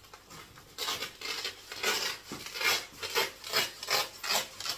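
Rhythmic rubbing, a series of about ten scraping strokes at some two to three a second, starting about a second in.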